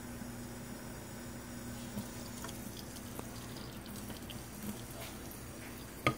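Faint, steady trickle of cold water from a kitchen tap running slowly into a plastic measuring cup. Near the end there is one sharp knock as the cup is set down on the counter.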